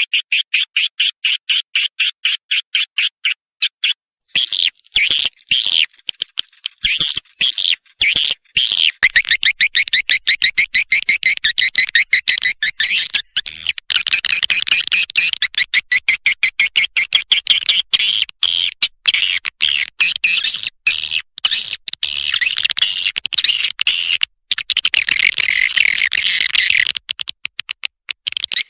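Edible-nest swiftlet lure call: a recording of swiftlets twittering in rapid trains of short, high chirps, played to draw the birds into a swiftlet house. The chirps come thicker and more continuous after the first several seconds, broken by short gaps.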